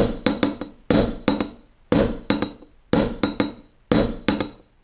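Small hammer tapping a steel punch to drive the firing-pin retaining roll pin out of a CZ P-07 pistol slide on a bench block. Groups of taps come about once a second, each a hard strike followed by several lighter quick ones, with a short metallic ring.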